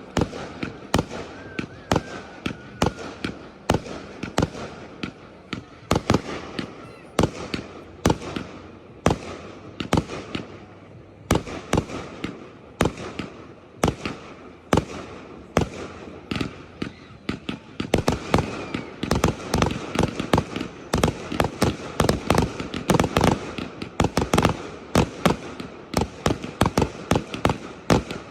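Fireworks display: a fast, continuous barrage of aerial shell bursts, several bangs a second, growing denser and heavier in the second half.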